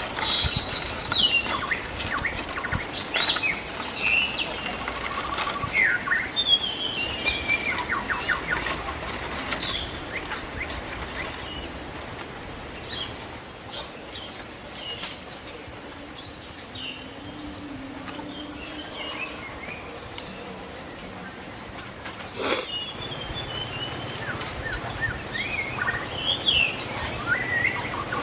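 Small birds chirping and calling again and again. Over the first several seconds, sharp crinkling clicks of aluminium foil being peeled off grilled fish.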